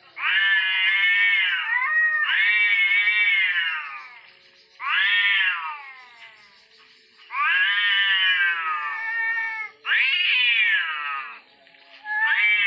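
Cats caterwauling in a fight standoff: long, drawn-out yowls that rise and fall in pitch, about six in a row with short gaps between them.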